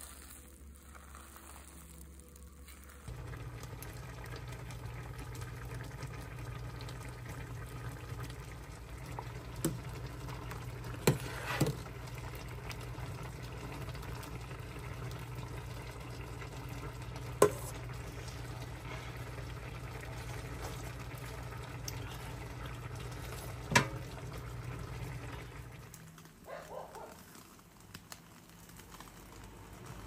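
A pot of soup boiling on a glass-top cooktop: a steady bubbling hiss with a low hum. It starts about three seconds in and is broken by a few sharp metal clinks, the ladle against the pot. It fades out near the end.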